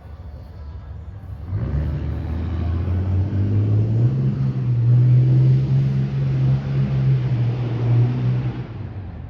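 A motor vehicle driving past on the road. Its low engine note steps up in pitch as it accelerates, over a broad rush of tyre noise. It swells in about a second and a half in and fades near the end.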